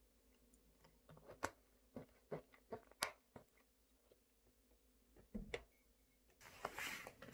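A string of small clicks and taps, then a dull knock and a brief rustling scrape near the end, as a large plastic drink bottle and a frosted glass mug are handled on a stone countertop just after pouring.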